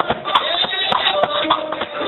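Drum kit played live with quick, uneven hits and cymbal strikes, over held musical notes.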